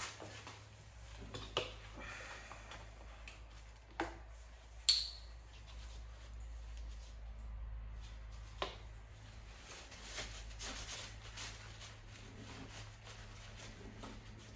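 A few sharp, light clicks and knocks, the loudest about five seconds in, with some faint rustling between them over a steady low hum.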